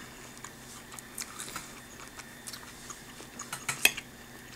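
Soft chewing of a mouthful of kale and tofu salad, with scattered small clicks. Near the end a fork clicks against the plate as it scoops up more food.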